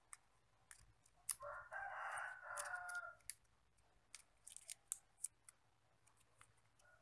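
Faint crinkling clicks of a thin plastic drinking straw being folded and creased by hand. A rooster crows for about two seconds, starting about a second and a half in, and this is the loudest sound.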